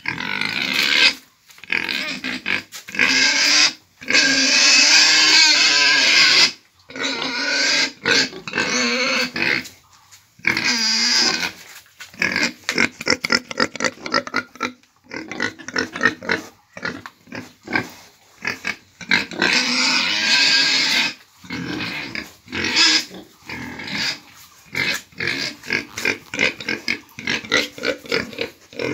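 Pigs squealing and grunting, loud and almost without pause, with a few long high squeals lasting a couple of seconds each among quick short calls.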